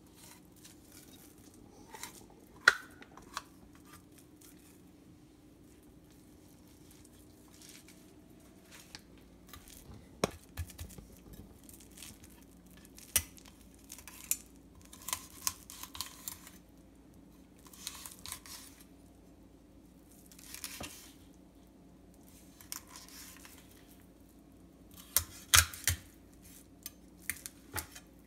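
Kitchen knife filleting a morwong: short scraping, tearing strokes as the blade slices along the backbone and rib bones, with scattered sharp clicks and taps.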